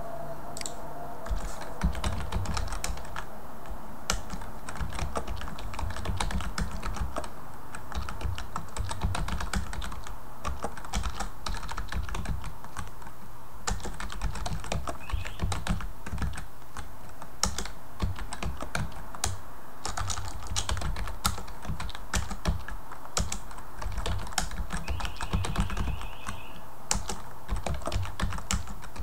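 Typing on a computer keyboard: a steady run of irregular key clicks with brief pauses, starting about a second in.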